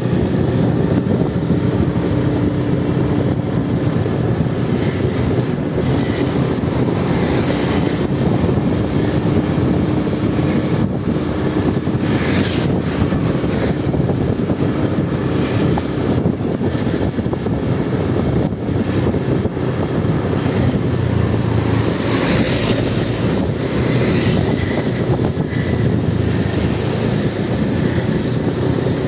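Motorbike engine running steadily while riding along a street, under a constant rush of wind and road noise.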